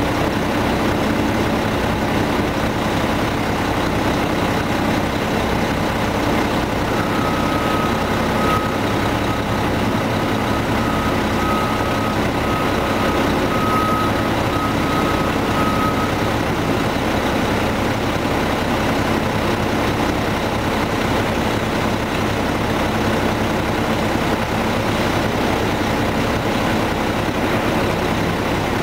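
Ford garbage truck's engine running steadily as its Loadmaster rear-loader tailgate is raised to dump the load. A faint high beeping comes and goes for several seconds in the middle.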